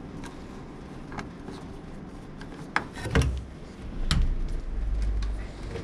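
A few light clicks and knocks of plastic and metal scale parts being handled, with a low handling rumble from about three seconds in.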